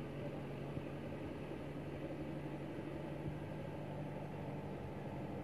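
Kubota tractor's diesel engine running steadily under load as it tills a flooded paddy field on cage wheels.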